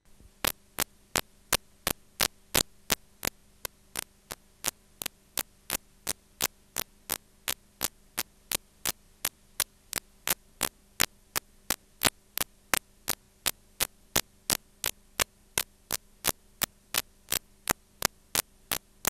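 Playback noise from blank VHS tape past the end of the recording: a low steady hum under sharp, regular clicks about three times a second.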